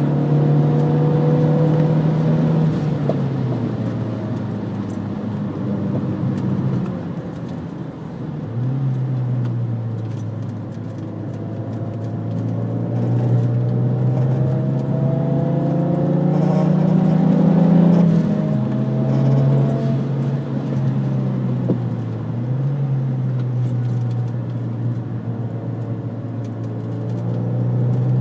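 Renault Megane R26's turbocharged four-cylinder engine heard from inside the cabin at track pace. Its note climbs steadily under acceleration and falls back several times as the driver lifts off or changes gear, over steady road and wind noise.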